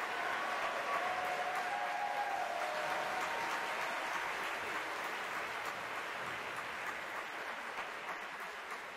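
Audience applauding steadily, the clapping slowly dying down over the last few seconds.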